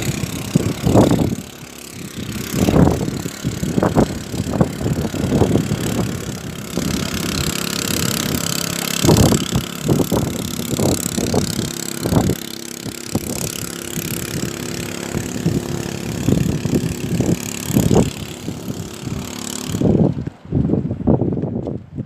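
An engine running steadily, with wind buffeting the microphone in irregular rumbles.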